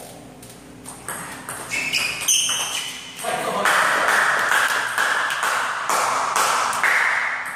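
Table tennis rally: the ball clicks sharply off the rackets and the table in quick succession. About three seconds in, a louder, steady noise takes over and runs for several seconds as the point ends.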